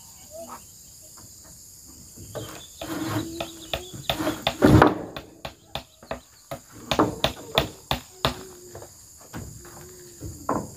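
Irregular sharp knocks and clatters from work on zinc roofing sheets: a heavy bang about halfway through, then a quick run of sharp knocks. A steady high-pitched chorus of crickets keeps up underneath.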